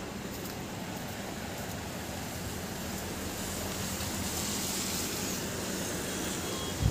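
Steady hiss of rain falling outdoors, with a faint low hum underneath, and a sudden low thump right at the end.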